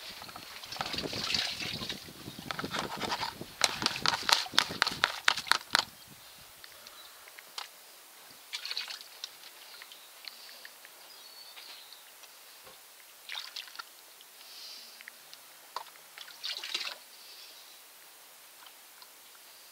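Water sloshing and pouring as gold-panning concentrate is washed from a large black plastic pan into a smaller green plastic pan. There is a busy run of splashes for about the first six seconds, then a few scattered trickles and splashes.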